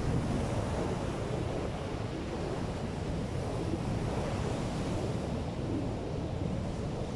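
Waves breaking and washing up a sandy beach, with strong wind blowing across the microphone: a steady, even wash of noise.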